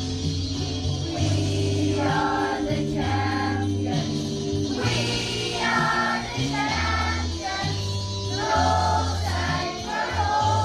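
A group of children singing together over a backing track with long, held bass notes; the voices come in about two seconds in.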